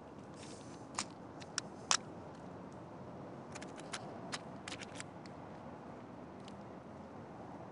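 Scattered light, sharp clicks and taps: three in the first two seconds, a quick cluster in the middle and one more late, over a low steady hiss.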